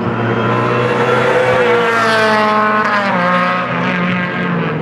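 BMW Z4 GT3 race car's V8 engine at high revs as it comes through the corner and passes, loudest about two seconds in, its note dropping in pitch around three seconds. A second race car follows close behind.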